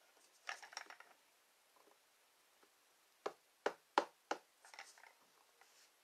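Inking and stamping with a rubber cling stamp: light paper rustling near the start, then four quick, sharp taps of the stamp a little past the middle, followed by soft rustling.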